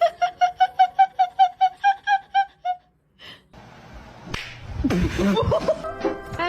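A person laughing in a high-pitched giggle: a quick, even run of about a dozen short notes lasting under three seconds. After a short gap comes a jumble of noise, with music starting near the end.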